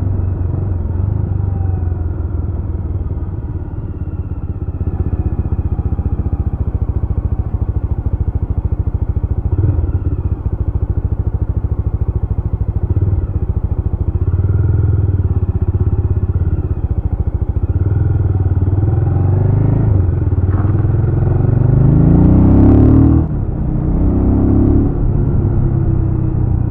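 Jawa RetroTrail 650's single-cylinder engine running under way, its revs rising and falling. About 20 seconds in it revs up steadily to its loudest, then drops off sharply, followed by a shorter rev rise.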